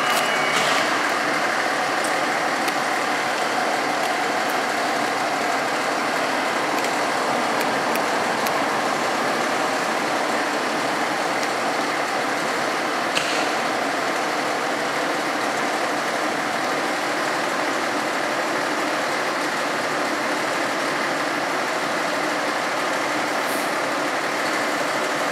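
Fire engine's diesel engine idling steadily, with one faint click about halfway through.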